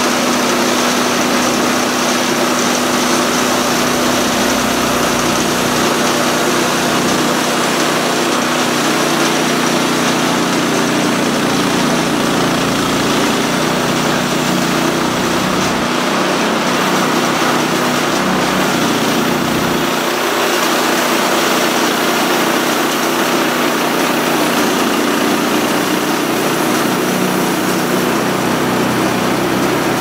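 Small gas engine of a portable bandsaw sawmill running steadily under load while the saw head is pushed along a log and the band blade cuts through it.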